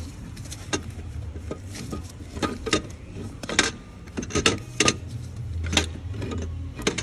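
Irregular metal clicks and knocks as an unbolted Audi TT 2.0 TFSI alternator is worked loose by hand and shifts against its mounting bracket, over a low steady hum.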